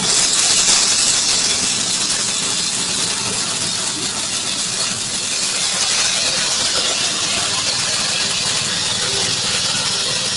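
Corn grinding mill driven by a 6.5 hp engine, running steadily while grinding maize kernels into fine meal. A loud hissing grind sits over the engine's steady hum and is brightest in the first couple of seconds, as the kernels are poured in.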